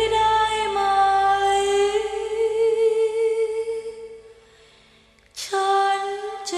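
A woman singing long, held notes with vibrato. The voice fades away about four seconds in, and a new phrase starts with a sharp breath at about five and a half seconds.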